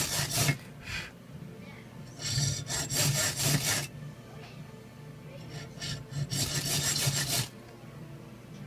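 Saw blade cutting a groove into a ferrocerium (ferro) rod held in a vise: rasping back-and-forth strokes in three short bouts with brief pauses between, the rod throwing sparks as it is cut.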